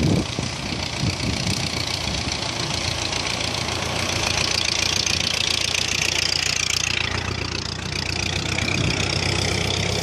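A steady low engine-like drone with a continuous high hiss over it.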